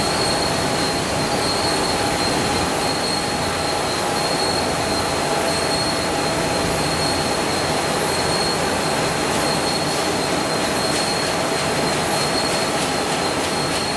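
Steel coil slitting line running steadily. There is a dense metallic hiss, with a constant high squealing tone and lower steady whines from the strip, slitter knives and rollers.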